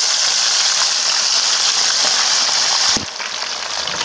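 Fish steaks deep-frying in hot oil: a steady, high sizzle that drops suddenly to a softer sizzle about three seconds in.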